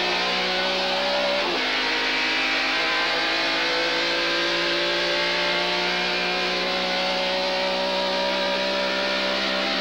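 Background music: sustained, droning electric guitar chords held for long stretches, with one chord change about a second and a half in.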